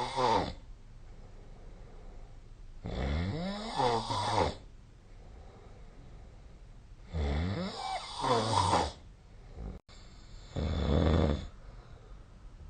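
A person snoring in their sleep: the end of one snore, then three loud snores about every four seconds, each lasting about a second and a half with a sliding pitch, and quieter breathing in between.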